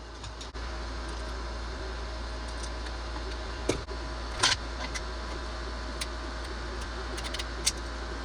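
A few sharp clicks and clinks of tools and parts being handled while the chainsaw's recoil starter is opened up, over a steady background hum.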